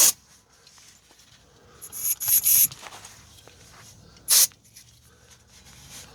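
Aerosol can spraying in short hissing bursts onto front brake caliper bracket parts to blast off debris: a quick cluster of three about two seconds in, then one more past four seconds.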